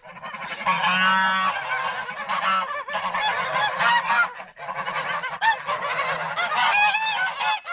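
A group of geese honking continuously, many calls overlapping one another.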